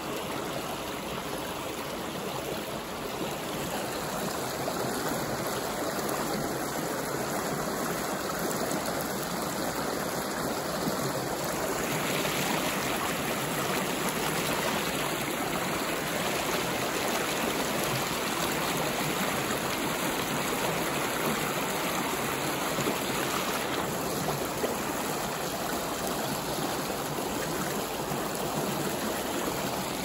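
Creek water rushing steadily over a shallow riffle and a low rock ledge.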